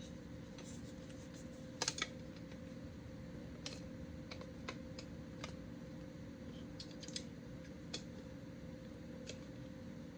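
Scattered light clicks and taps of plastic mount parts being handled and fitted together, loudest as a pair of knocks about two seconds in, over a steady background hum.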